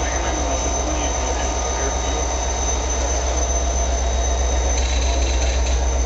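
A steady low mechanical drone with a thin high whine over it, and faint voices in the background.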